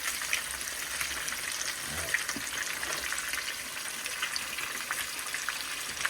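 Whole fish frying in a pan of hot oil: steady sizzling dotted with small crackling pops.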